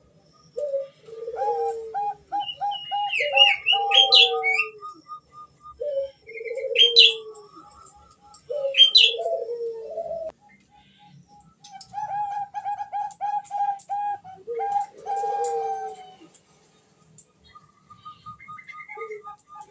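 Zebra dove (Bangkok perkutut), given as a female, cooing to call a male: repeated phrases of quick short notes that drop into lower, falling coos, several times with a short gap before the last one. Higher chirps and whistled sweeps from other small birds sound alongside.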